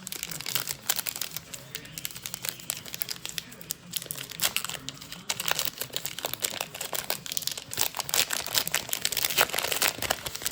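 Baseball trading cards being handled and sorted through by hand: a busy, continuous run of crinkling, flicking and rustling.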